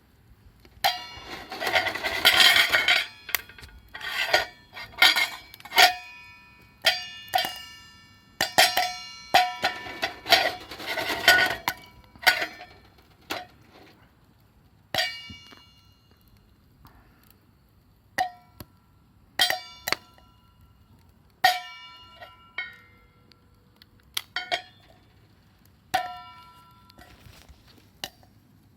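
Metal objects being struck and knocked together in irregular clinks and clanks, each one ringing briefly at the same pitches, with a dense flurry of rattling about two seconds in and another near eleven seconds.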